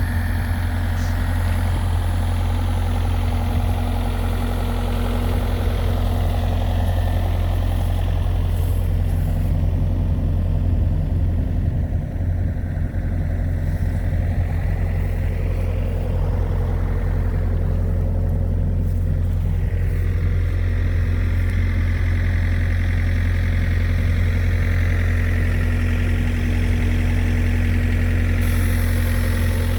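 Hako Citytrac 4200 compact municipal mower running steadily with a deep, even engine hum. Its higher-pitched sound fades between about ten and twenty seconds in and comes back near the end.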